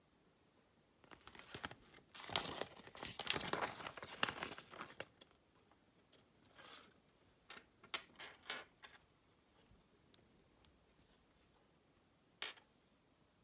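Foil wrapper of a Kinder Surprise chocolate egg being torn and crinkled: a dense crinkling rustle for about four seconds, then scattered crackles, and one sharp click near the end.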